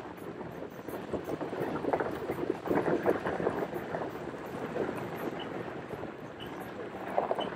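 A 4x4 vehicle driving on a rough dirt road: tyre noise over the gravel with irregular crunching, rattles and knocks from the jolting, heaviest a few seconds in.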